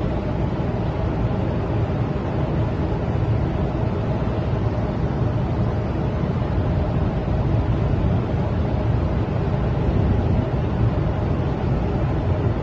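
Steady low rumble of a large ship underway, with wind buffeting the microphone.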